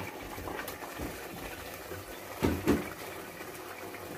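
Raw chicken pieces sliding off a plate into a pot of simmering tomato-chilli masala, with soft wet plops and two knocks about two and a half seconds in, over a steady low simmer.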